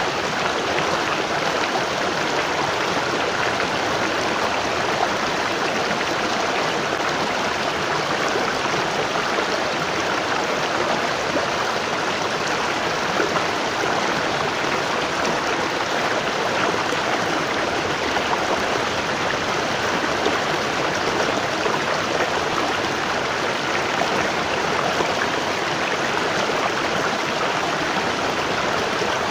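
Waterfall: water falling and rushing in a steady, even roar of white water.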